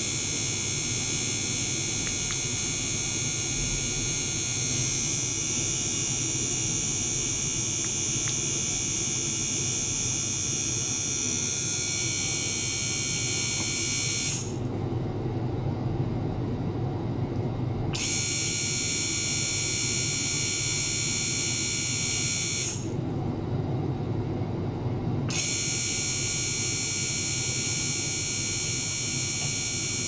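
Small water-circulating pump and ultrasonic transducer running in a plastic tank: a steady low hum with a cluster of high whining tones on top. The high tones switch off twice, for about three and a half seconds around halfway through and for about two and a half seconds about three quarters through, while the hum carries on.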